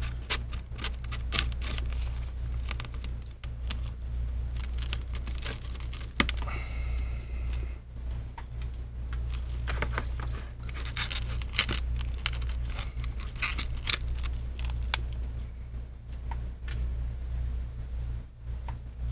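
Broken screen-glass shards scraping and clicking as a pry tool pries and scrapes them off an iPad's frame, in quick irregular ticks and scratches, over a steady low hum.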